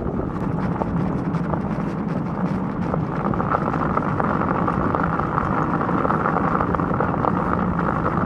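Dog sled running over packed snow behind a husky team: a steady rumble and scrape from the runners, with wind on the microphone. It gets a little louder about three seconds in.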